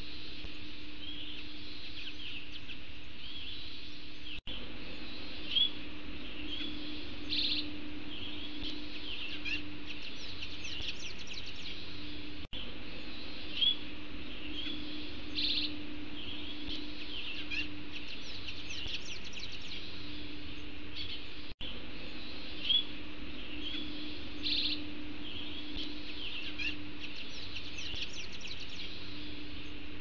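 Small songbirds chirping and twittering in short, high calls and quick trills over a steady low hum. The same few seconds of birdsong repeat about every eight and a half seconds, a looped recording.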